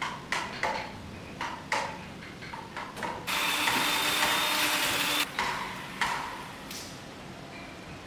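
Sharp knocks of tools striking wood, several in a row less than a second apart. They are broken about three seconds in by a loud hiss that lasts about two seconds, then the knocks resume.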